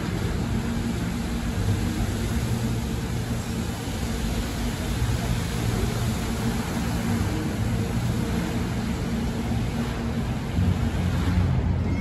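Steady hiss of the Bellagio fountain's water jets spraying, over a low hum of traffic. The hiss thins out near the end.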